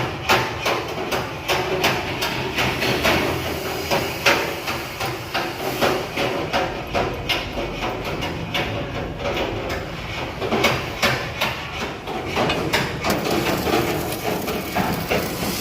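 Repeated hammer blows on metal, irregular, about one to three strikes a second, over a steady background din.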